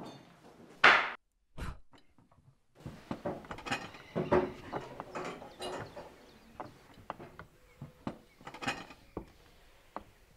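A short hissing burst about a second in and a low thud, then, after a brief gap, a run of irregular light clicks and knocks.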